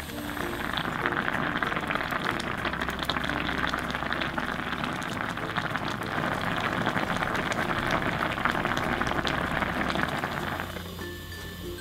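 A pot of jeon-jjigae, a spicy stew of leftover pan-fried jeon, boiling hard: a dense, crackling bubbling that stops abruptly near the end.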